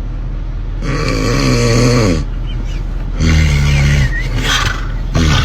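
Loud, strange snoring: two long, drawn-out snores with a buzzing pitched tone, the first lasting about a second and a half and the second about a second, then a short snort near the end.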